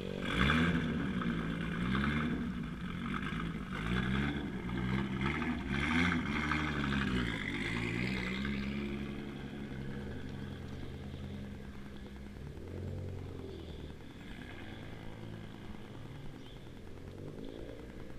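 Car engine revved several times, its pitch rising and falling, then running steadier and fading as the car pulls away.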